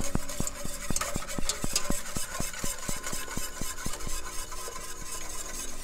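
Wire whisk clicking rhythmically against a stainless steel saucepan, about four to five strokes a second, as egg and hot milk are whisked together to temper them.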